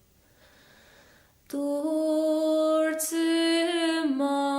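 After a short pause, an unaccompanied solo voice starts singing again about a second and a half in: a slow song in Irish, with long held notes that slide between pitches.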